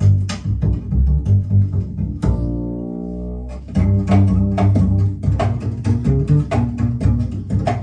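Music played back through a hi-fi system: a deep double-bass line with sharp percussive clicks, and one long held low note near the middle.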